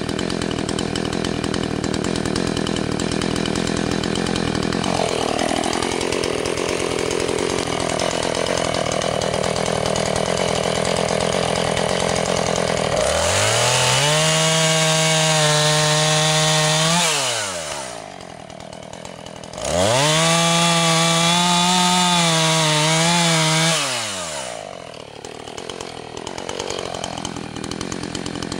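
Husqvarna 445 two-stroke chainsaw idling, then opened to full throttle twice for about four seconds each while cutting through a log. On the second cut the engine note wavers under load before dropping back to idle.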